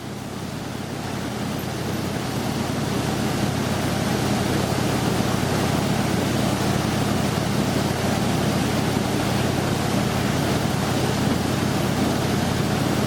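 A heavy vehicle's engine running steadily with a low hum under loud broad noise, growing louder over the first few seconds and then holding.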